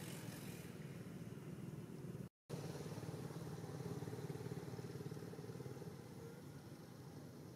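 A steady, low engine drone, broken by a brief dropout about two seconds in.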